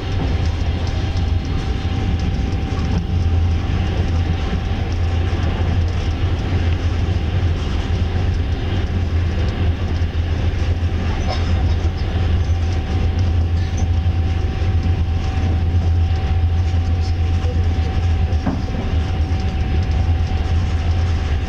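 Passenger train carriage running at speed, heard from inside: a steady low rumble of wheels on the rails, with a thin steady tone above it and a few faint knocks.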